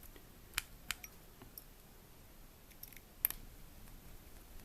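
A few sharp small clicks and taps from a small screwdriver and tiny Phillips screws against a smartphone's plastic housing as the screws are put back in. Two clicks come under a second in and a sharper one about three seconds in.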